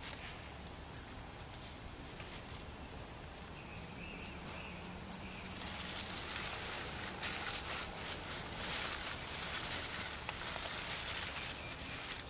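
Dry fallen leaves crackling and rustling under a cat as it shifts and settles into them, growing louder about halfway through.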